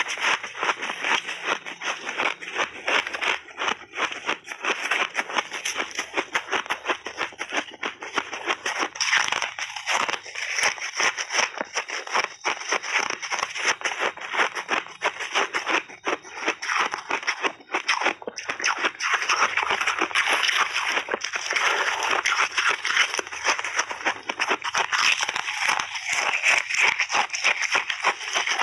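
Close-up crunching of shaved ice and ice chips being bitten and chewed: a dense, rapid crackle of many small cracks, with only brief lulls between bites.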